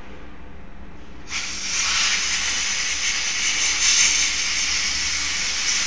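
A steady hiss that starts suddenly about a second in and runs for about five seconds.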